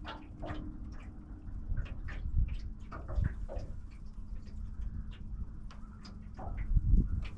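Wind rumbling on the microphone on an open boat, with a faint steady low hum and scattered light clicks and taps throughout.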